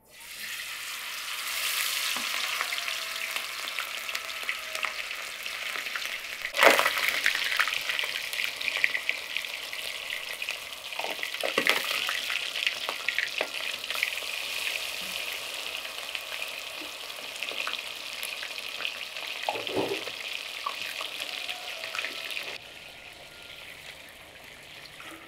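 Whole floured fish sizzling and crackling in hot oil in a cast-iron frying pan, starting as the fish goes into the oil. A louder burst of spattering comes about seven seconds in. The sizzling stops abruptly near the end.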